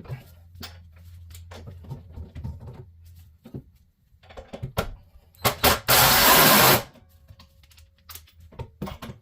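Light metal clicks and clinks of parts being handled, then a power tool run in short bursts: two quick blips about five and a half seconds in, followed by a loud burst of about a second.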